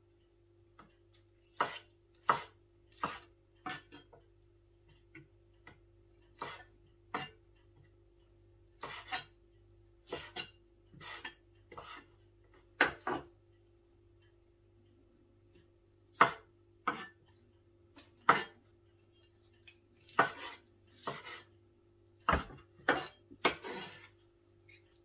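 Chef's knife chopping black wood ear fungus on a wooden cutting board: sharp, irregular knocks of the blade against the board, in short runs with pauses between.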